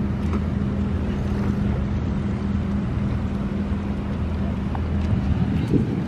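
Steady low hum of a running machine, holding one pitch.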